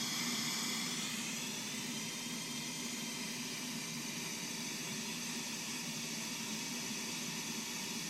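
Steady hiss with a faint low hum underneath, unchanging and without any distinct events.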